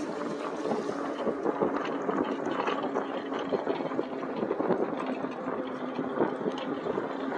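Wind rushing over the microphone with tyre noise from a moving electric bike: a steady rush flecked with light crackles over a faint steady hum.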